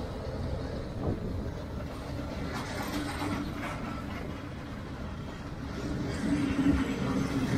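Diesel train engine running, a steady low rumble that gets louder about six seconds in.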